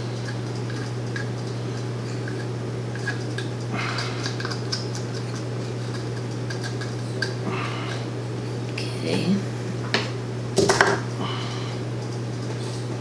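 Plastic measuring cups and a resin bottle being handled on a table while resin and hardener are measured out: scattered light clicks and taps, then a cluster of louder knocks and clatters about ten seconds in.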